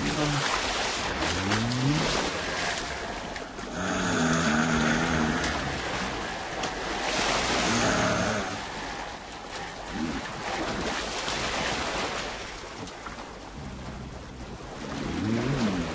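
Film soundtrack of wind and surf-like rushing noise, with low wavering tones that rise and fall several times and swell louder twice in the middle.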